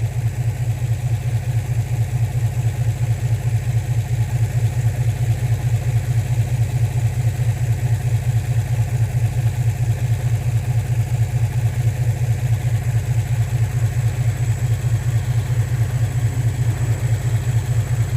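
2003 Infiniti G35's 3.5-liter V6 idling with a steady, pulsing exhaust note. It idles rough, which the mechanic takes for a misfire at idle.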